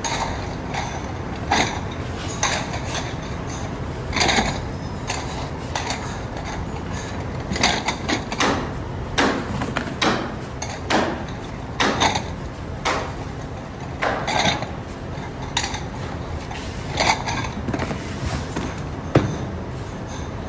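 Glazed ceramic bowls clinking and knocking together as they are packed into a cardboard carton, mixed with cardboard scraping and flaps being folded. The clatters come irregularly, over a steady low background noise.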